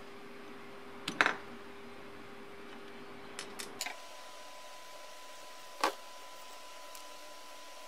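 Sharp metallic clicks of a flat screwdriver prying a steel E-clip off a vice's lead screw, the loudest a double click about a second in. A few lighter ticks follow, then another sharp metal knock near six seconds as the vice is handled.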